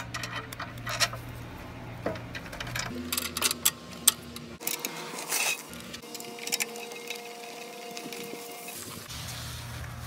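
Plastic clicks and rattles of the walk-behind leaf blower's handle being fitted, its knobs turned and tightened by gloved hands, over a steady low hum.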